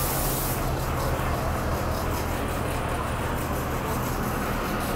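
City transit buses idling at the curb with a steady low hum. A hiss of air fades out about half a second in.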